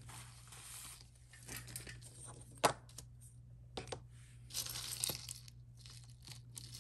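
Jewelry being handled: a bag rustling and crinkling in patches, with scattered sharp clicks and clinks of metal pieces, the loudest about two and a half seconds in.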